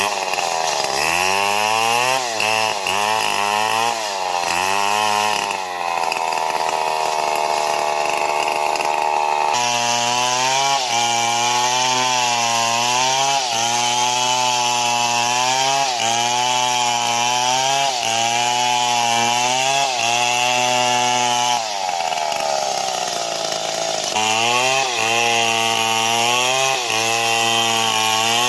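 Stihl MS 070 two-stroke chainsaw sawing wood at high revs, its engine pitch dipping and recovering about once a second as the chain bites under load. It holds a steadier high pitch for a few seconds early on, and its pitch sags deeply about two-thirds in.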